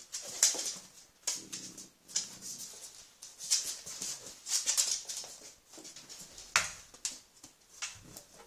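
French bulldog making short breathy noises over and over, roughly one burst a second, with two tennis balls in its mouth. A single sharp knock comes about two-thirds of the way through.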